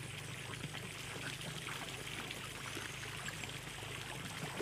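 Water trickling and running steadily.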